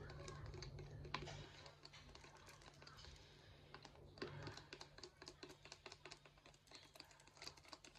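Faint, quick, irregular clicking of a straw stirring a runny shampoo mixture in a small plastic tub, tapping against its sides.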